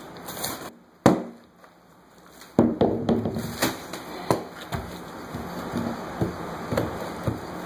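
Claw hammer prying up a section of water-damaged subfloor. A sharp knock comes about a second in. From the middle on there is a run of cracking and splintering with repeated snaps as the board breaks and tears away.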